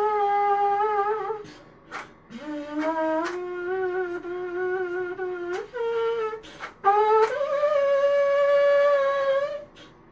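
A 3D-printed rectangular trumpet played in a series of held brass notes, each begun with a sharp tongued attack. A note that stops about a second and a half in, a long low note from about two seconds in, a brief higher one, then a long higher note that breaks off near the end.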